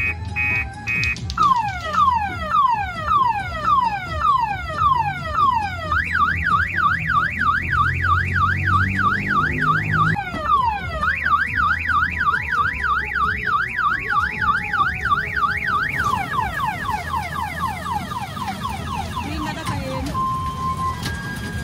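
Electronic car-alarm siren sound effect played through a kiddie ride's loudspeaker, cycling through falling wails about two a second, a fast up-and-down warble, and then quicker falling wails. A low hum runs under the first half and stops about ten seconds in.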